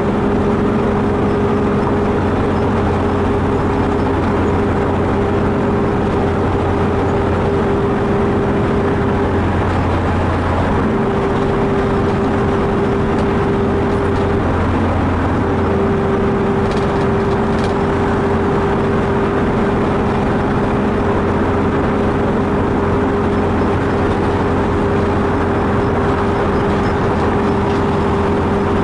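Car cruising at steady highway speed: constant engine and tyre noise with a steady drone that drops out briefly twice near the middle.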